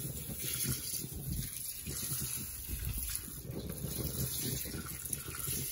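Dry rice pouring from a plastic measuring jug into simmering broth in a paella pan: a steady soft hiss, with an uneven low rumble underneath.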